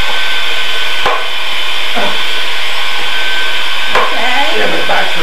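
Cordless drill driving a portable lift's winch, a steady motor whine as it hoists a heavy man off the floor, with a few light clicks.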